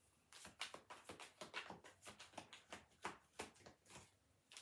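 A deck of tarot cards being shuffled by hand: faint, irregular soft card flicks and taps, several a second.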